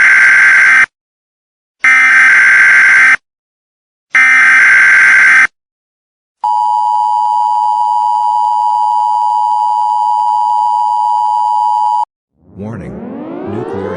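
Emergency Alert System tones: three loud, harsh screeching bursts of SAME header data, each about a second long with a second of silence between. Then the steady two-tone attention signal holds for about six seconds and cuts off sharply. Near the end a civil defense siren starts winding up, rising in pitch.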